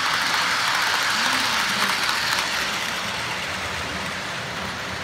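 Model train cars rolling along the track, a steady clatter of wheels on rail that fades a little after a couple of seconds as the train moves away.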